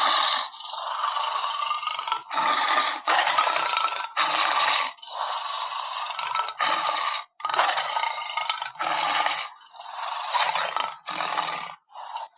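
An animal's harsh, noisy calls, about a dozen in a row, each lasting half a second to two seconds with short gaps between them.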